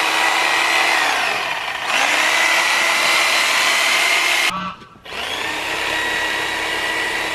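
A handheld electric power tool running in three long bursts, its motor whine spinning up at the start of each and winding down at the end, with short pauses about two and four and a half seconds in.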